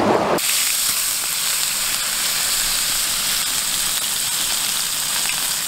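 Whole barred surf perch frying in oil in a cast iron skillet, a steady high sizzle that starts suddenly about half a second in.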